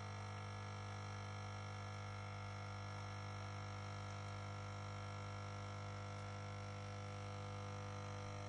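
Dolce Gusto capsule coffee machine's pump buzzing steadily as it pushes water through the capsule, brewing coffee.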